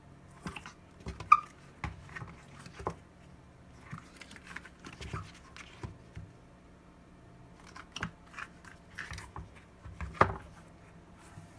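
Handling noise: irregular clusters of short clicks, taps and rustles, with sharper knocks about a second in and near ten seconds, as the washing machine's rubber door seal is handled. A faint steady hum sits underneath.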